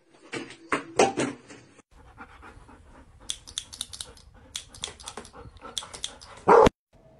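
A dog panting in quick, even breaths, which stops with one short loud sound about six and a half seconds in.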